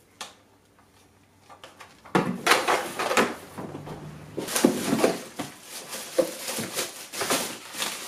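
Clear plastic packaging bag crinkling and rustling as it is pulled off the vacuum's main body, in irregular crackly handfuls starting about two seconds in, after a single light click.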